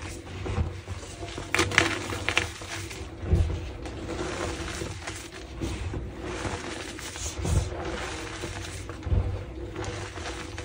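Slices of gym chalk, topped with Holi powder, being crushed and crumbling in a run of crisp crunching cracks. The loudest cracks come about two seconds in.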